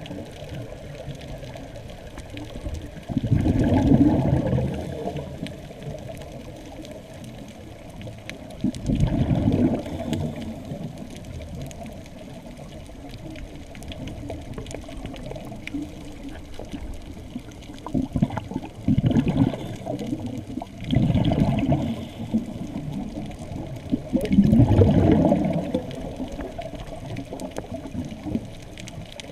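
A scuba diver's exhaled bubbles rushing out of the regulator, heard underwater, in about five bursts of one to two seconds between quieter stretches.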